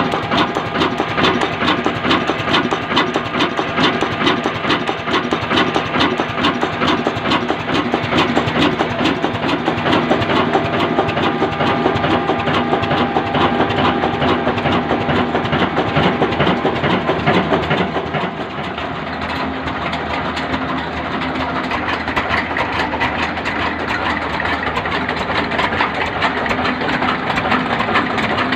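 Indian 'Kala' desi stationary diesel oil engine running steadily with a rapid, even beat. About two-thirds of the way through, its sound drops slightly in loudness and changes pitch.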